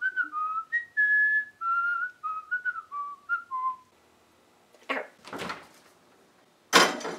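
A person whistling a short tune: a string of clear notes stepping up and down for nearly four seconds. After a short quiet gap come two brief noisy bursts. The second, near the end, is the loudest.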